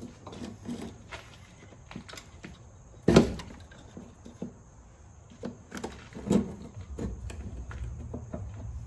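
Scattered knocks and clicks of work on a car, with a loud knock about three seconds in and another a little past six seconds. A low steady hum starts about seven seconds in.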